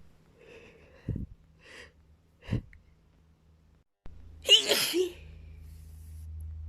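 A woman sneezing: a few short, breathy sounds in the first few seconds as the sneeze builds, then one loud sneeze about four and a half seconds in.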